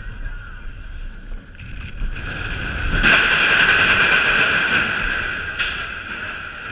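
Nessie steel roller coaster train running along the track with wind rushing past the microphone; about three seconds in it enters a tunnel and the wheel noise rises suddenly to a loud, steady roar that slowly eases off, with one sharp click near the end.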